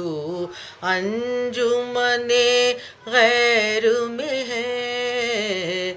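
A woman singing a line of an Urdu nazm without accompaniment, drawing out long held notes with ornamented bends in three phrases separated by brief breaths.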